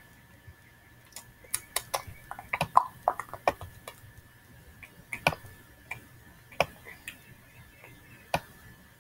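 Irregular sharp clicks from the pointing device of a computer being used to paint, a quick run of them in the first few seconds, then single clicks a second or more apart. A faint steady high tone sits underneath.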